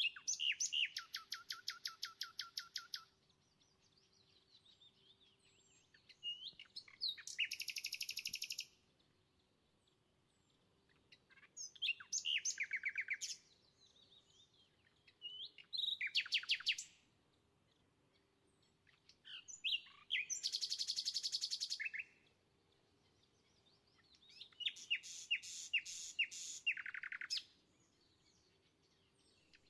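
A songbird singing in about six separate phrases of fast trills and chirps, each lasting two to three seconds, with pauses of a few seconds between them. A faint steady hum sits underneath.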